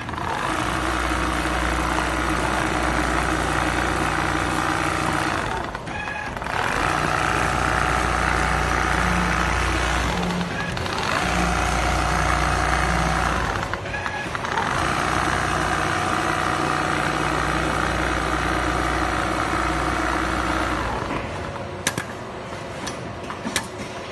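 Richpeace large-format automatic sewing machine with a rotary head running as it stitches a feather duvet, a steady mechanical hum broken by a few short pauses. It stops near the end, followed by a few sharp clicks.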